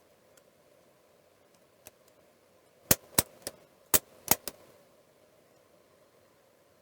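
A quick run of about six sharp clicks and taps, a small circuit board being handled, turned over and set back down on the bench or in its holder.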